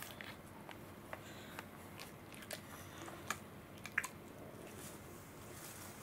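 Small scattered clicks and smacks from a drowsy Welsh corgi lying on an aluminium cooling plate, over a steady low hiss. The two loudest come about three and four seconds in.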